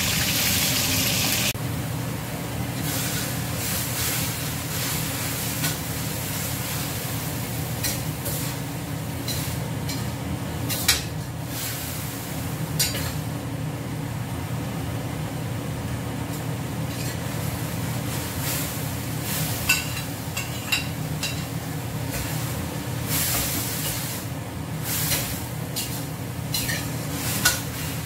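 Oil sizzling loudly under frying fish for about the first second and a half. After that, a metal spatula stirs and scrapes vegetables in a wok over a gas burner, giving scattered clicks and knocks over a steady low hum.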